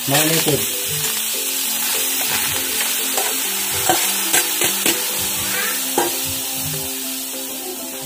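Marinated meat and its liquid tipped from a metal bowl into a wok, sizzling steadily, with a few sharp clinks of the bowl against the wok.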